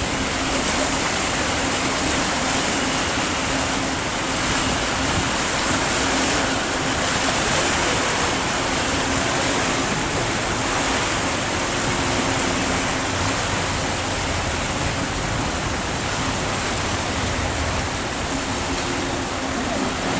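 Steady rush of water churning in a moving tour boat's wake, with a faint low engine hum coming and going underneath.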